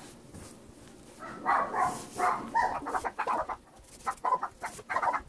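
An animal calling in a quick run of short pitched calls, starting about a second in.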